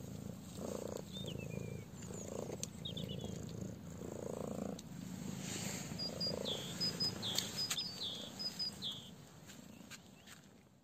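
A cat purring steadily close by, with a small bird chirping over it; about six seconds in, a quick run of repeated high chirps sets in and lasts some three seconds.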